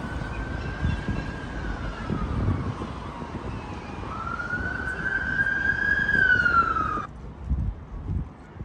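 Emergency vehicle siren wailing over city traffic rumble: one slow fall and rise in pitch, cut off suddenly near the end.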